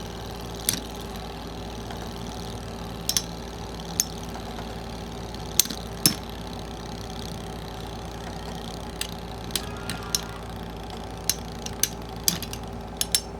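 Two Metal Fight Beyblade spinning tops battling in a stadium: a steady spinning hum under sharp metallic clacks from impacts. The clacks are scattered at first and come faster in the last few seconds.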